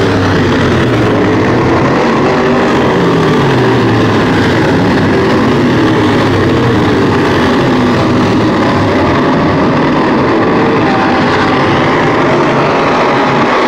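Several dirt-track race car engines running hard and loud, their pitch sliding up and down as the cars pass and accelerate through the turns.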